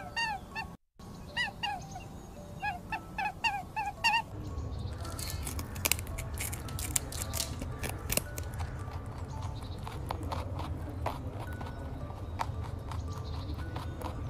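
Domestic fowl calling with short, repeated pitched calls, several a second, for the first four seconds, then a steady low rumble with scattered clicks.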